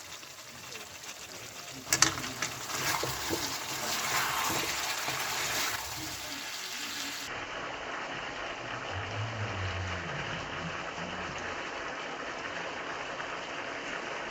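Hot water poured into a kadai of frying chicken masala: a knock about two seconds in, then a hissing, gushing rush of liquid meeting the hot pan for a few seconds, settling into a steady sizzle.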